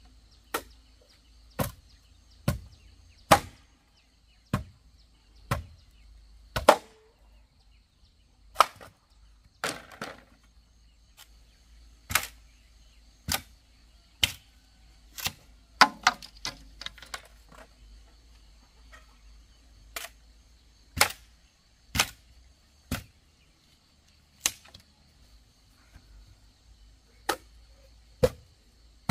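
Hand tool striking wood in runs of sharp blows about a second apart, with short pauses between runs and a brief flurry of quicker knocks midway.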